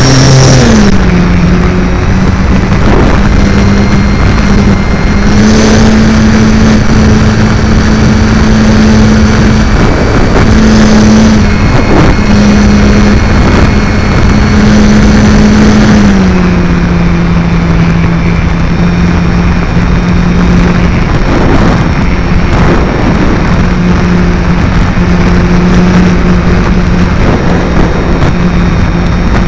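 Multiplex FunCub RC plane's electric motor and propeller running in flight, heard from a camera mounted on the plane. A steady hum shifts pitch a few times as the throttle changes: down about half a second in, up around five seconds in, and down again around sixteen seconds in. Under it is a loud, dense rush of air and vibration noise.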